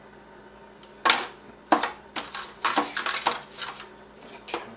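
Disposable aluminium foil roasting pan crinkling and clattering as the roast and knife are handled in it: a quick run of sharp, irregular clicks and crackles starting about a second in.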